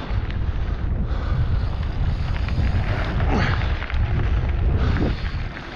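Heavy wind buffeting rumbling on the microphone of a mountain bike riding downhill, with the Specialized Fuse's tyres crunching over dirt and loose rocks and the bike rattling and clicking over the bumps.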